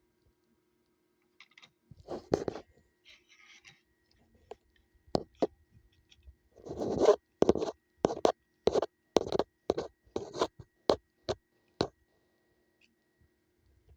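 A series of sharp plastic clicks, roughly two a second, with a few scrapes, from handling a multimeter's case and parts.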